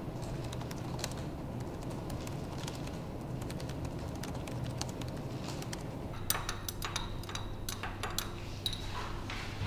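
Laboratory room tone: a steady low hum with scattered faint clicks, then from about six seconds in a quick run of sharp clicks and clinks of small objects being handled.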